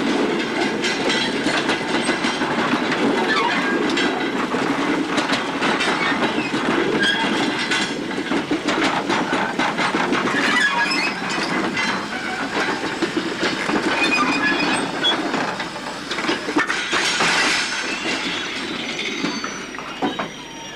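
A rake of empty coal hopper wagons rolling past, the wheels clattering and knocking over rail joints and points, with brief high-pitched squeals of wheel on rail. The sound eases a little near the end.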